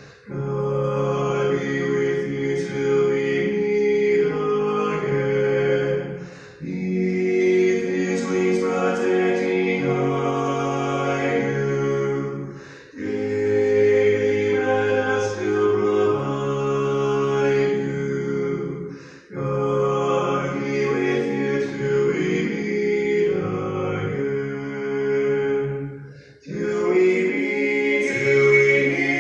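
Slow choral singing in long held chords, in phrases of about six seconds with a short break between each.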